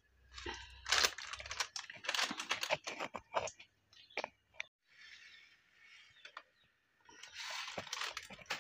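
Plastic spice packet crinkling and rustling as it is handled, with quick clicks and taps of kitchen items. Two stretches of softer rustling follow, one past the middle and one near the end.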